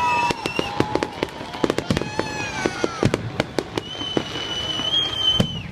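Fireworks going off in rapid, irregular bangs and crackles, with high whistling tones over them; one high whistle holds from about four seconds in and stops near the end.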